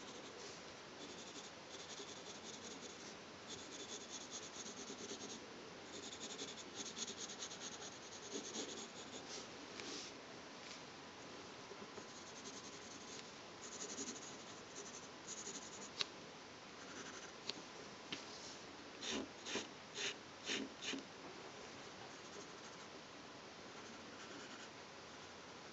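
Pencil scratching on paper in short sketching strokes, faint and uneven. Later on comes a quick run of about five firmer strokes, roughly two a second.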